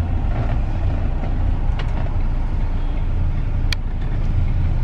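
Steady low rumble of motor traffic, with a couple of short clicks.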